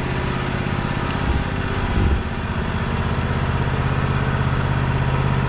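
Small gasoline engine of a portable band sawmill running steadily, with a brief low thump about two seconds in.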